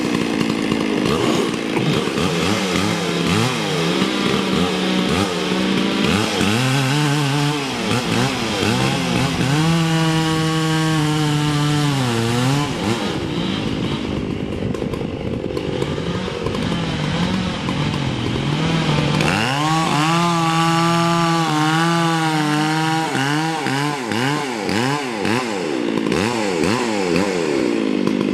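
Two-stroke chainsaw running hard and cutting wood, its engine pitch holding high, then sagging and wavering as it is loaded, and climbing back several times.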